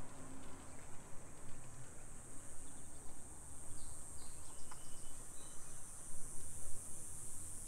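Insects buzzing in a steady high-pitched drone, over a low background rumble, with a few faint short chirps near the middle.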